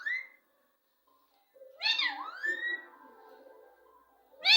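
Pet parrot calling: a short rising note at the start, a loud call about two seconds in that drops and swoops back up, and another sharp call at the very end.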